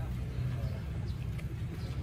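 Steady low outdoor rumble, with a faint sharp tick about one and a half seconds in: a badminton racket hitting a shuttlecock during a rally.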